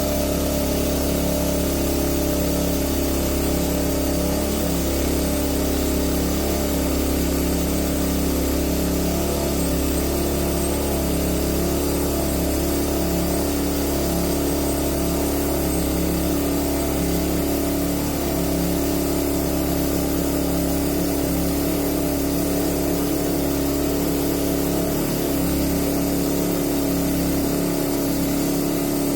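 Frontier portable bandsaw mill running steadily while milling red oak: the engine's even drone with the band blade, holding one pitch throughout.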